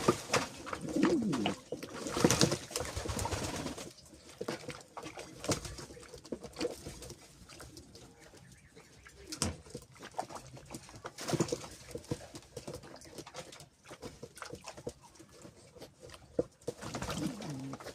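Male domestic pigeons cooing, with low wavering coos strongest in the first few seconds, again about eleven seconds in and near the end. Scattered sharp clicks and taps run between the coos.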